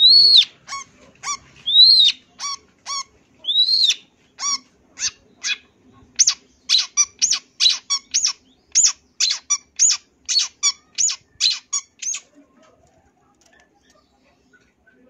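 Long-tailed shrike singing: three loud arching whistled notes, then a fast run of short, sharp chattering notes, about three or four a second, that stops about twelve seconds in.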